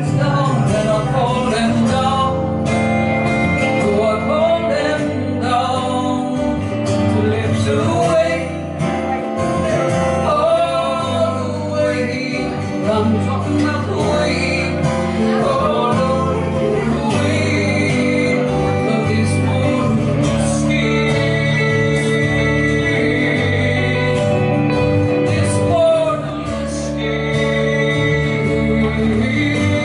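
Live band playing a song on acoustic guitar, electric guitar and electric bass.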